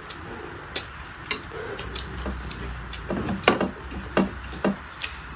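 Eating sounds of two people eating rice and curry by hand: scattered short sharp clicks and smacks, about eight in all, over a faint low hum.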